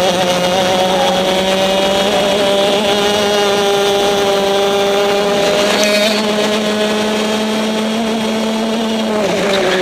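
Racing kart's two-stroke engine, heard on board, running at high revs. The pitch climbs slowly as the kart accelerates, then dips briefly near the end as the driver lifts for a corner and picks up again.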